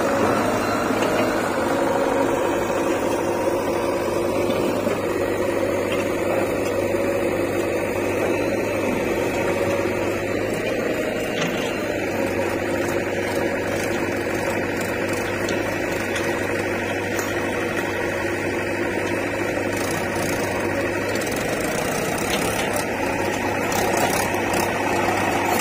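Diesel engines running steadily: a Mahindra tractor pulling a trolley loaded with earth, with a JCB 3DX backhoe loader close by. The sound gets a little louder near the end as the tractor draws near.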